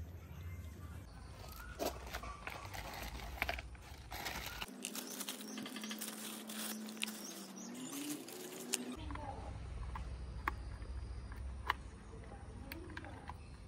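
Hard plastic roof-rack crossbar foot parts being handled and fitted together, with plastic packaging rustling and several sharp clicks and knocks. In the middle a low tone slowly rises in pitch.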